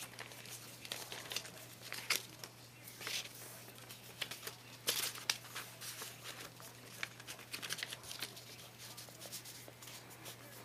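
White paper being handled, folded and rolled, rustling and crinkling in irregular short bursts.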